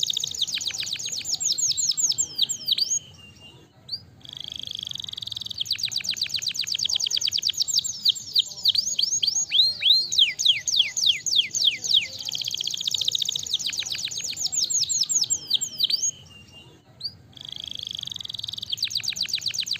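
Domestic canary singing long, high phrases of rapid trills and rolling chirps, with two brief pauses, about four seconds in and about sixteen seconds in.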